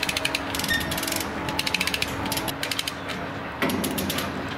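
Lever chain hoist ratcheting in short runs of rapid clicks as its handle is worked to haul steel pipe into place, with a louder clatter about three and a half seconds in.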